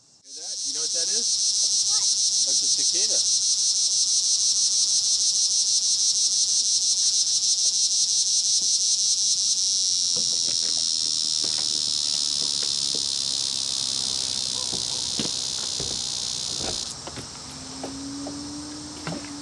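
Loud, high-pitched insect buzz, pulsing rapidly at first and then holding steadier, before stopping suddenly near the end.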